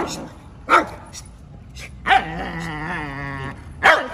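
Dog barking: a sharp bark about a second in and another near the end, with a long, wavering drawn-out cry between them.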